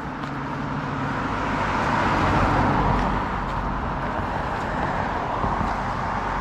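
A car driving past on the street, its tyre and engine noise swelling to a peak about two and a half seconds in, then easing off.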